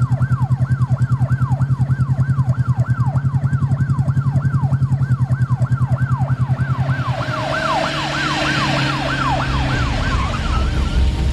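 Police escort siren on a fast yelp, each wail dropping in pitch, about three to four a second, over a loud low pulsing drone. In the second half a hiss rises, the drone fades out, and the siren stops near the end.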